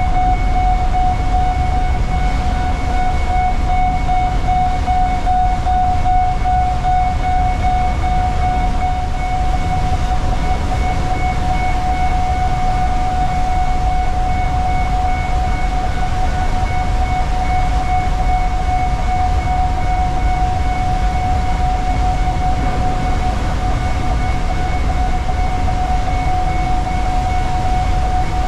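The ferry's onboard machinery runs steadily: a loud low rumble with a constant whine held on one pitch.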